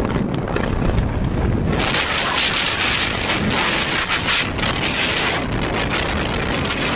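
Wind buffeting the microphone on a moving Yamaha R15 motorcycle, a loud rushing hiss with the bike's engine and road noise beneath it. The wind hiss grows stronger about two seconds in.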